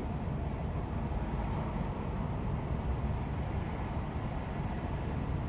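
Steady low rumble of roadside background noise, even throughout with no distinct events.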